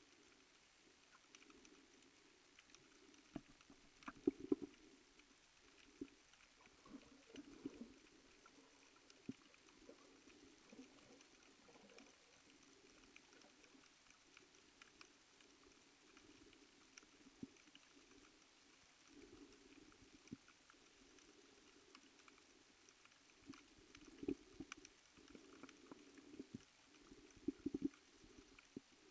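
Faint underwater ambience recorded by a submerged camera: a low, muffled hum of the water with scattered clicks and crackles, in louder clusters about four seconds in and again near the end.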